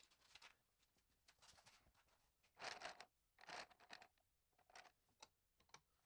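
Near silence, with a few faint brief rustling or scraping noises; the two most noticeable come close together about three seconds in.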